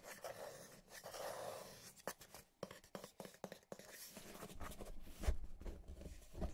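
Fingers rubbing, scratching and tapping on a matte black cardboard box: a soft scratchy rubbing at first, then a run of light taps and clicks, then dull knocks, the loudest about five seconds in.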